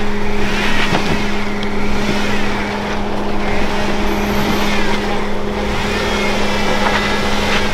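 Jeep Wrangler Rubicon JKU engine running at a steady low speed, a constant hum with no revving, as the Jeep crawls over a rock ledge.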